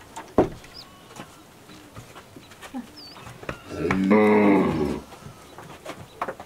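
Cow mooing once, a single call of a little over a second, about four seconds in. A sharp knock comes near the start.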